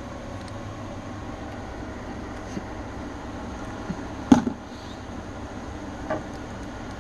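Small plastic toy parts knocking and clicking as a 3D-printed accessory is handled and fitted onto an action figure, with one sharp click a little past the middle and a few softer knocks, over a steady background hum.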